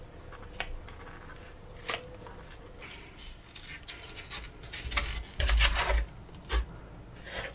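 Hands pressing and sliding over a depron foam wing on a wooden table: foam rubbing and scraping with scattered clicks. In the second half there is a cluster of louder knocks and thumps as the wing is lifted and handled.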